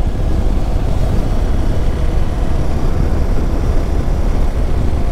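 Steady wind rumble on the microphone mixed with a Hero XPulse 200 4V's single-cylinder engine running as the motorcycle is ridden along.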